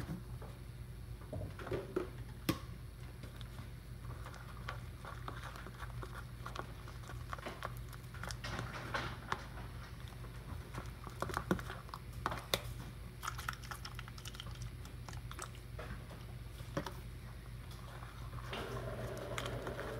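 Sticky glue-and-borax slime being stirred and kneaded by hand in a bowl: irregular wet squelches and little sticky clicks, over a steady low background hum that grows fuller near the end.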